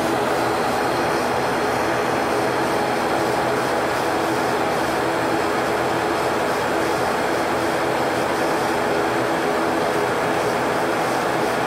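Cabin noise of an ATR 42-300's turboprop engines and propellers heard from inside the cabin, a steady drone with humming tones and no rise in power while the plane is on the ground before its takeoff run.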